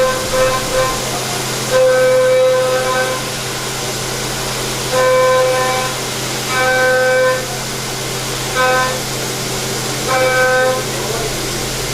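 CNC machining centre cutting metal: a steady machine hum and hiss, broken by repeated pitched squeals from the cutting tool. About six squeals come and go, each lasting from a fraction of a second to just over a second.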